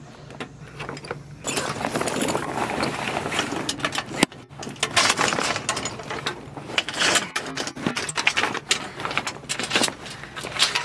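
Stiff sailcloth rustling and crackling as a sail is handled and pulled along the boom, with a sharp click about four seconds in, over a low steady hum.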